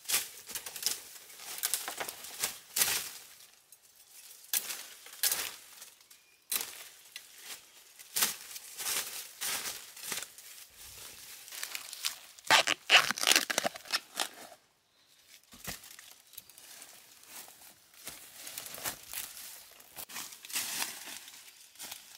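Dry fallen bamboo leaves crackling and rustling as someone moves through the leaf litter and handles plants, in irregular bursts with a short pause about two-thirds of the way through.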